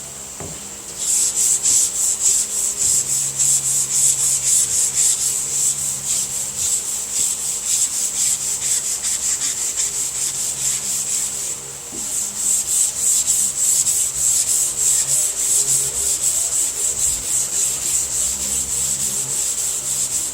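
Hand sanding with a long sanding block: sandpaper rubbed back and forth over the primer on a car hood in quick, even strokes. There is a short break a little past halfway before the strokes resume.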